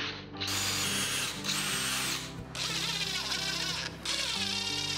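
Power drill running in four short bursts of about a second each, boring countersinks into plywood and driving a wood screw, over background music.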